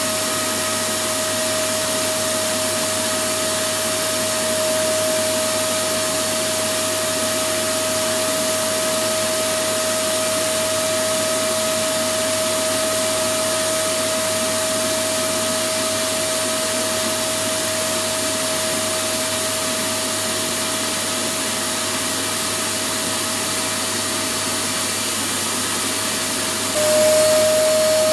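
Electric vacuum cleaner running steadily: a constant rush of air with a steady whine. About a second before the end it gets a little louder and the whine drops slightly in pitch.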